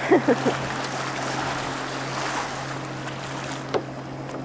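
Small boat's outboard motor running with a steady drone as it tows a barrel through the water, under a constant rush of wind and water noise. A couple of brief squeaks right at the start are the loudest sounds.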